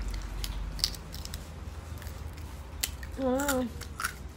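Crunching and chewing of a crispy dried kiwi chip: a scatter of sharp crackles as it is bitten and chewed. About three seconds in, a short wavering hummed 'mmm'.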